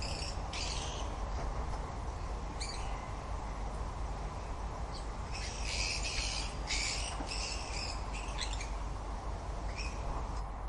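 Birds squawking in short, scratchy calls, grouped in bunches with gaps between them, over a steady low background noise.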